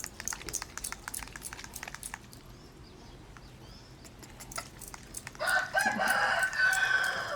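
A rooster crowing once, a loud call of about two seconds that starts about five and a half seconds in. Before it comes a run of small, quick clicks.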